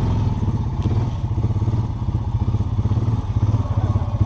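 Off-road bike engine running steadily under way, a low pulsing rumble.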